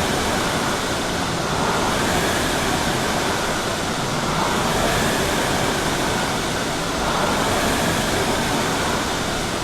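Concept2 rowing machines' fan flywheels whooshing through easy full-slide strokes, the rush of air swelling once per stroke, about every two and a half to three seconds.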